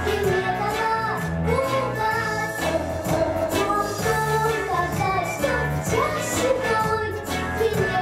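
A young girl singing a pop song into a handheld microphone over instrumental backing music with a pulsing bass.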